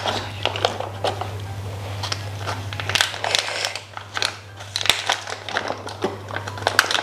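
Foil food pouch crinkling in irregular crackles as it is squeezed and shaken empty, tipping vegetables from a self-heating hot pot kit into a plastic pot.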